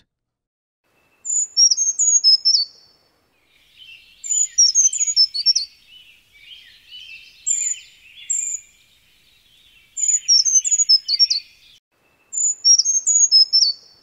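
Brown creeper singing: five short, high, thin songs, each a quick jumble of mostly descending notes, a few seconds apart. Through the middle a lower, busier twittering of other birds runs underneath.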